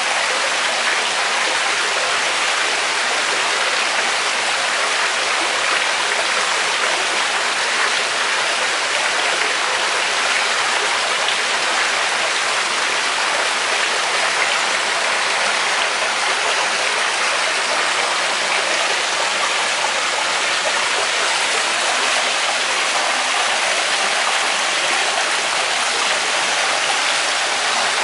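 Water spilling steadily from an artificial rock waterfall into a swimming pool, a constant even rush.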